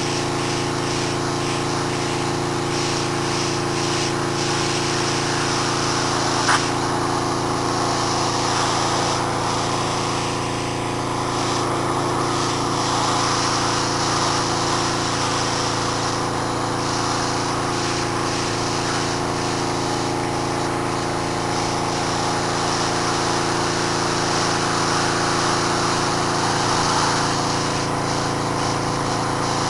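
Pressure washer running steadily, with the hiss of its fan spray blasting the concrete swelling and fading as the wand sweeps across the surface. A single sharp click about six seconds in.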